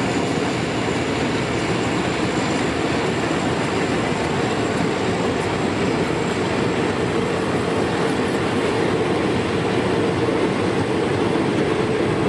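Diesel-hauled passenger train rolling steadily along the track, a constant noise of wheels and carriages with some clickety-clack.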